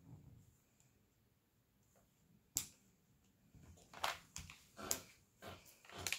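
Small, irregular clicks and taps of a diamond painting drill pen setting resin drills onto the sticky canvas. There is one sharp click about two and a half seconds in, then a quicker run of taps and light rustling over the last couple of seconds.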